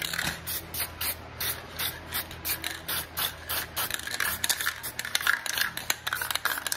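Aerosol toner can sprayed in quick repeated spritzes, several short hisses a second, feathering colour lightly onto a wood touch-up.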